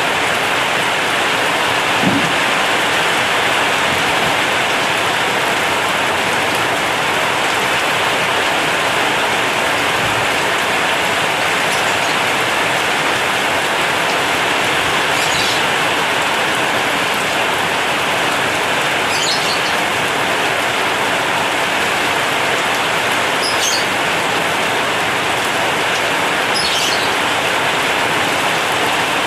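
Heavy rain falling steadily on a corrugated zinc roof, a dense even hiss, with one soft knock about two seconds in.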